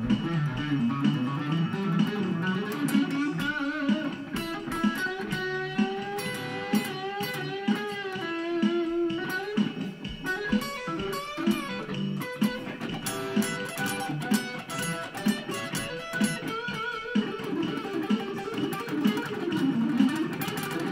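Guitar music: a melody with bent, wavering notes over a repeating low accompaniment.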